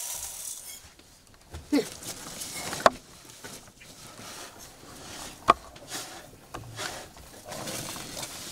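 A metal scoop scraping and knocking against a steel bowl, with a few sharp clinks, and a woven plastic sack rustling as it is handled.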